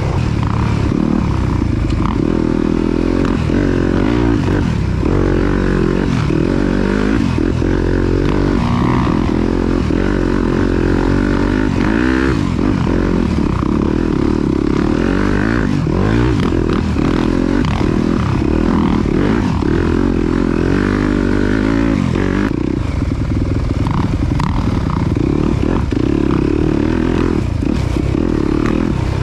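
Dirt bike engine running hard on a trail ride, its revs rising and falling again and again as the throttle is worked, over a steady rushing noise.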